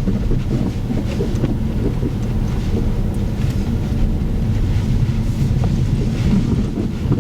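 Skoda car driving, heard from inside the cabin: a steady low rumble of road and suspension noise, with a few faint scattered ticks. The driver is hunting a scraping, rubbery creak from the rear suspension after fitting KONI Sport rear shock absorbers.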